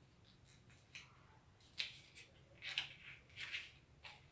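Paper cutouts being peeled off a wall and pressed back on: a few short, faint rustles and crinkles of paper, the loudest about two and three seconds in.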